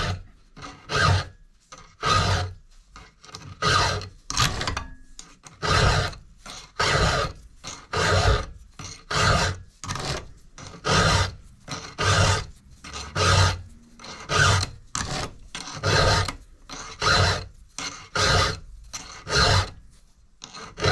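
Round file rasping across chainsaw chain cutters, one stroke about every second, as a Husqvarna 372XP chain is hand-sharpened. Each stroke is a short metal-on-metal scrape.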